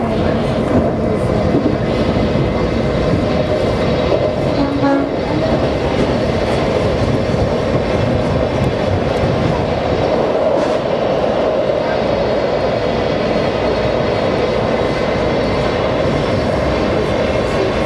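Washington Metro railcar running at speed: a steady rumble of wheels on rail and running gear.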